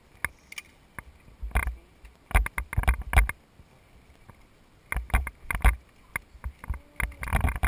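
Handling noise close to the microphone: irregular rustles and knocks of clothing, gear and paper rubbing against the body-worn camera, in two bursts with a quieter gap of about a second and a half between them.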